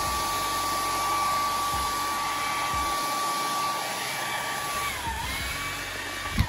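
Hot-air blower running steadily, a rushing noise with a steady motor whine, heating a warranty sticker's adhesive so it can be peeled off. About five seconds in the whine dips in pitch and recovers, and near the end it cuts off with a click.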